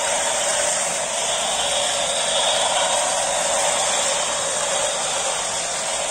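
Battery-powered toy bullet train running fast around its plastic track, its small electric motor and gears giving a steady whir.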